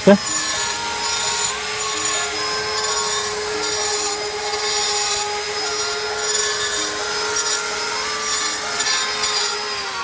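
Handheld electric disc cutter (angle-grinder type) running steadily and cutting into a stone block, with gritty high-pitched bursts each time the disc bites. Its motor pitch starts to drop near the end.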